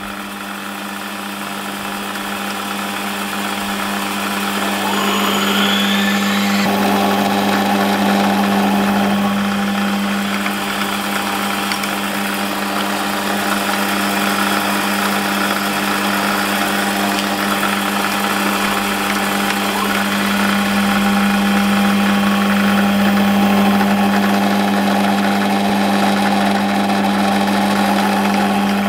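Small metal lathe running with a steady motor hum, getting louder over the first few seconds as it comes up to speed, then holding steady while a 9.25 mm twist drill bores out a phosphor bronze bush held in the collet chuck.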